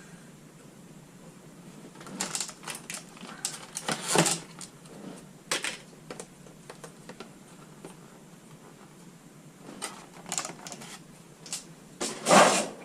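Packaging of a Pokémon trading-card collection box being handled: scattered sharp clicks and short crinkling rustles in irregular bursts, the loudest about four seconds in and just before the end.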